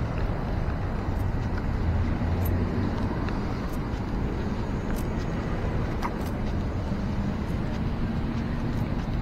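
Steady low outdoor rumble with light footsteps on asphalt, ticking about once a second.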